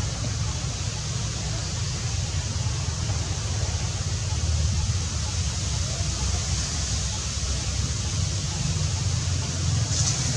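Steady outdoor background noise: a low rumble under a constant high hiss, with no distinct events.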